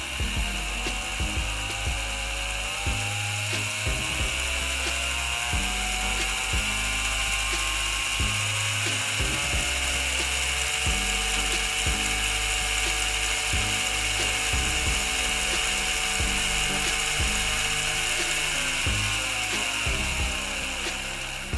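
Small DC motor and gearbox of a Mehanotehnika HO T360 model tram running on a variable DC supply, with its gears clicking. The motor whine rises in pitch over the first ten seconds as the voltage is turned up, holds steady, then falls near the end as the voltage is turned down.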